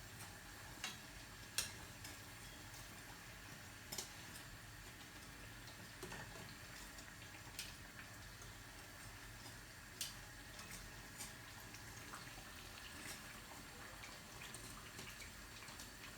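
Banana and cassava-flour pancakes frying in hot oil: a faint steady sizzle with sharp single pops every second or two.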